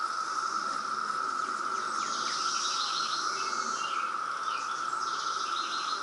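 Chorus of periodical cicadas: a steady, unbroken high drone from many insects calling together in the trees.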